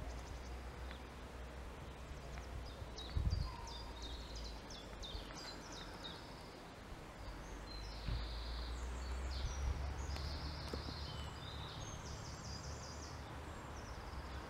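Outdoor ambience of songbirds singing in short high chirps and trills over a low steady rumble, with one dull thump about three seconds in.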